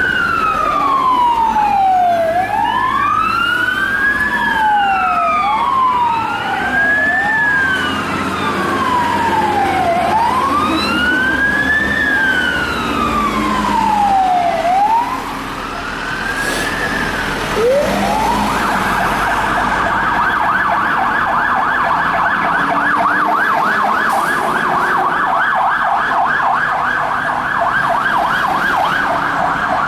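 Fire truck's electronic siren wailing, rising and falling in pitch every few seconds, then switching about two-thirds of the way through to a fast, rapid yelp. A low vehicle engine rumble runs underneath.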